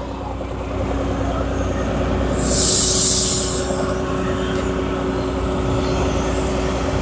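A vehicle engine running steadily with a low hum, and a loud hiss of released air lasting about a second, starting about two seconds in.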